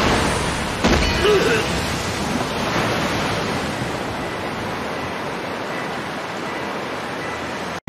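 Anime sound effect of a huge torrent of water rushing and surging, a water-release jutsu. A sharp hit about a second in is followed by a steady roar of churning water that slowly eases off and cuts off abruptly near the end.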